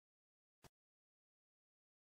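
Dead silence broken once, about two-thirds of a second in, by a single brief faint click.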